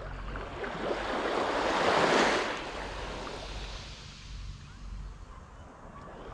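Small, gentle wave washing up on a sandy beach at the water's edge, swelling about two seconds in and then fading.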